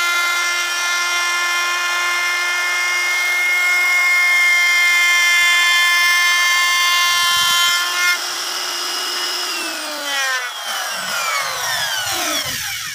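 Electric wood router running at full speed with a steady high whine while routing a circular groove in wood. About eight seconds in the level drops, and the whine then falls steadily in pitch as the motor winds down to a stop near the end.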